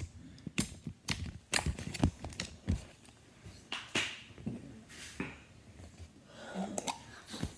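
Handling noise: about five sharp knocks and taps in the first three seconds as slime containers are handled and set down on a table, then softer, scattered rustling and bumps.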